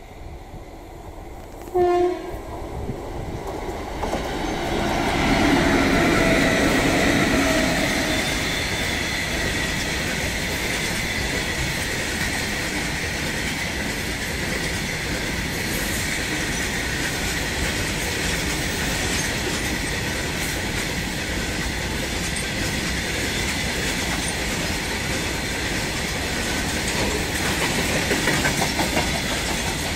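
A short blast of an electric locomotive's horn about two seconds in, then twin WAG-5 electric locomotives pass with a tone that falls in pitch. A long freight train of covered wagons follows, rolling by with steady rail noise and wheel clatter.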